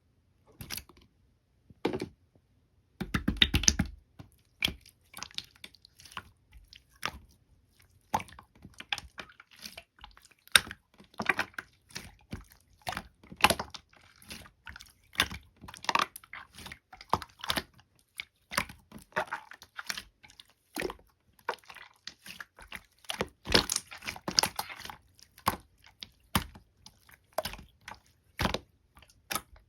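Slime being squished and pressed by hand, giving a long run of irregular sticky clicks and crackling pops, with louder bursts of crackling about three seconds in and again past the middle.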